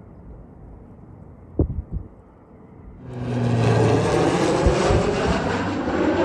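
Low wind rumble on the microphone with a few short thumps, then about three seconds in a sudden change to the loud, steady drone of an approaching Beech 1900 twin turboprop, swelling over a second and then holding, with a low hum beneath.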